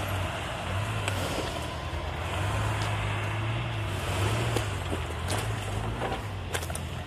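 Lifted Jeep pickup's engine running at low revs, its note rising and falling gently as the truck crawls over river rocks. A few sharp knocks come from stones under the tyres.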